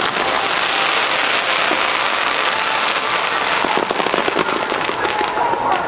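Fireworks crackling: a loud, dense, continuous fizz of many small pops.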